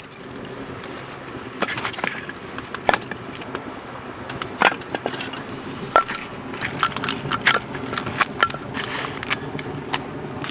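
Split firewood being handled and knocked together, with small splinters snapped off it: a string of sharp, irregular wooden knocks and cracks.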